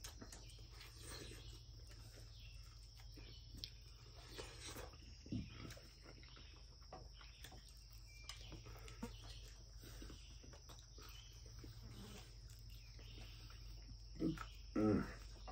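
Quiet eating sounds of a man biting and chewing fried chicken, faint smacks and ticks, over a steady high insect drone. Near the end he gives two short hums of voice.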